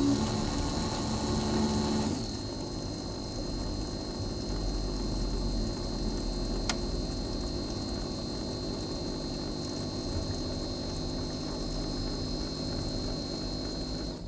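Keurig single-cup coffee maker brewing, its pump running with a thin high whine. About two seconds in the pump sound drops to a steadier, quieter hum, with a single sharp click near the middle.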